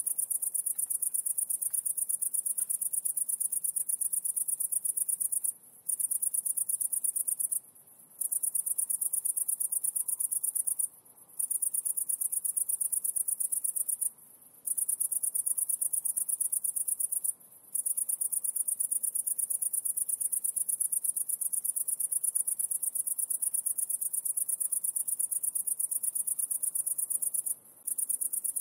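A continuous, very high-pitched, rapidly pulsing insect trill that stops for about half a second several times at uneven intervals.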